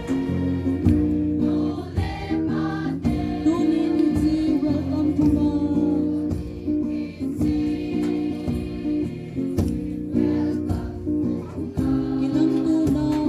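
Several voices singing a Christian song together, accompanied by guitar.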